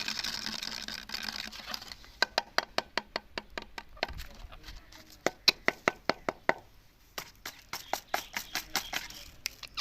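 A rapid, irregular series of light sharp taps or clicks, about four or five a second.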